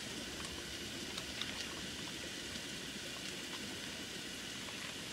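Steak and onion sizzling in a frying pan: a steady hiss with scattered small crackles.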